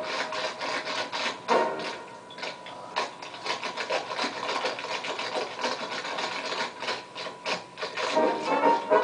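Dancers' shoes tapping and scuffing on a wooden stage floor in a dense, irregular run of quick clicks and scrapes, with no music under it: an unaccompanied tap break.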